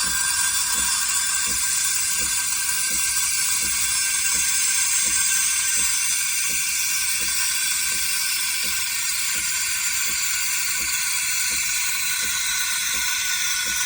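CASABREWS Ultra espresso machine's steam wand hissing steadily, with a faint regular ticking pulse underneath at about two a second.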